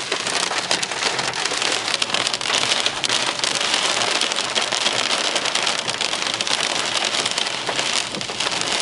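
Heavy rain mixed with hail pelting the car's roof and windscreen, a dense, unbroken patter of hard impacts heard from inside the cabin while driving.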